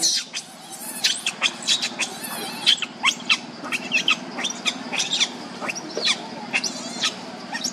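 Baby macaque crying in a rapid run of short, high-pitched squeals, several a second.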